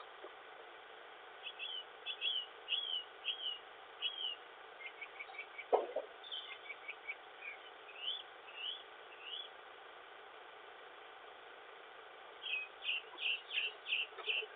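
Faint bird chirps in short runs of repeated notes, heard through a Ring Pro video doorbell's microphone over a steady hiss. A single dull knock comes about six seconds in.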